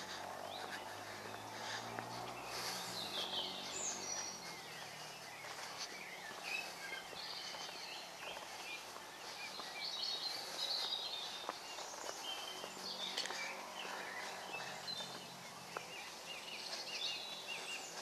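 Woodland birdsong: several birds singing and chirping, with short overlapping trills and calls, over a faint low background hum.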